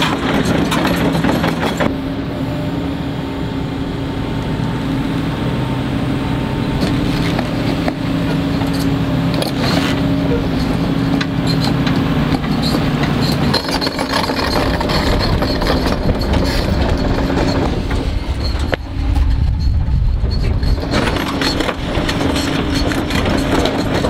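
Diesel engines of a Sany compact excavator and a lifted pickup truck running as they work, a steady low hum that shifts in pitch and loudness a few times.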